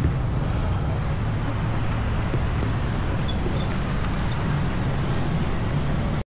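Road traffic noise: a steady low rumble of passing vehicles, which cuts off suddenly near the end.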